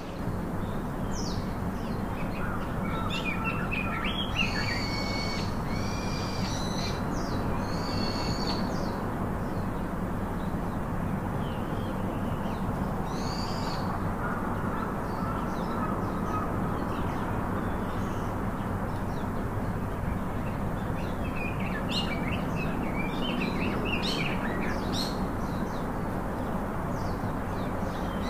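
Small birds chirping in short whistled calls over a steady low hum and hiss, with a cluster of calls in the first third and another toward the end.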